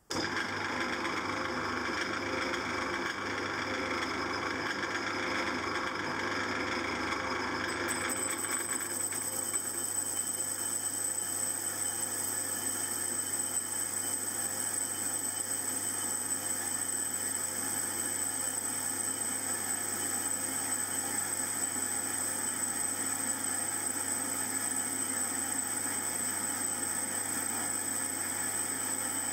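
Small metal lathe running, turning a flywheel's rim with a light 5-thou skim cut to clean off etched lines. About eight seconds in the sound changes, and a high steady whine joins.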